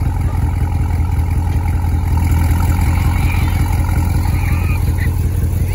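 2017 Corvette Stingray's 6.2-litre LT1 V8 running steadily at idle through Hooker long-tube headers with the catalytic converters deleted, giving a loud, low exhaust note.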